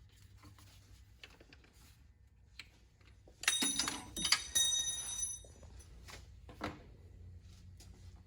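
Metal tools or parts clattering and ringing for a second or two, about three and a half seconds in, amid a few small knocks from work on the car's engine bay.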